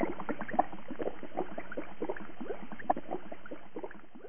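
Bubbling water sound effect: a dense run of small bubbles popping and gurgling, fading away near the end.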